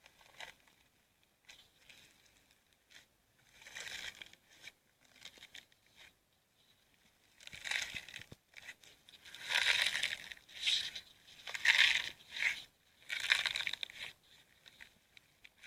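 Slime being squeezed and pulled, giving bursts of crackling and crinkling that come thicker and louder in the second half.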